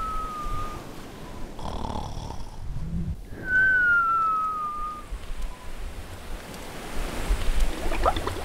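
Cartoon snoring sound effect: a whistling exhale that slides slowly down in pitch, a rasping snore, then a second falling whistle about three and a half seconds in. Faint bubbling pops near the end.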